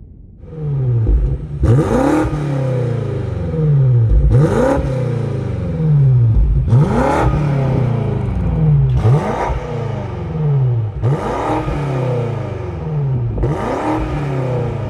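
A BMW X6 M Competition's twin-turbo V8 being revved while standing, blipped six times. Each time the revs climb sharply, then sink slowly back toward idle.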